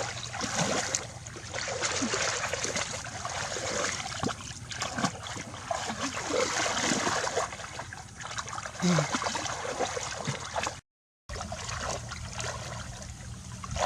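Shallow water splashing and trickling as hands work through it while fishing by hand, with many small irregular splashes. The sound cuts out completely for about half a second near eleven seconds in.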